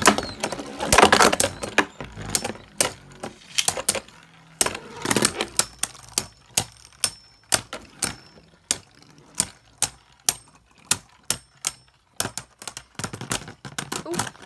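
Two Beyblade Burst spinning tops battling in a plastic stadium: a run of sharp clicks as they knock into each other and the stadium wall, two to three a second. There are louder clashes about a second in and again about five seconds in.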